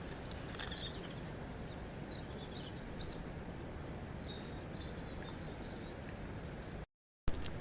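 Steady rush of flowing water with small birds chirping over it in short high calls. The sound drops out completely for a moment about seven seconds in and comes back with a click.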